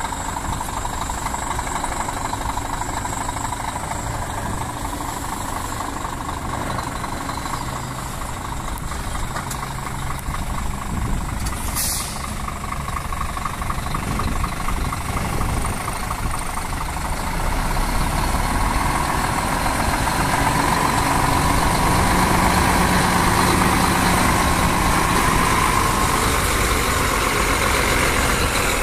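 Scania tractor unit's diesel engine running at low revs as the truck, hauling a three-trailer tritrem tank combination, creeps forward and grows louder as it draws near. A short high hiss comes about twelve seconds in.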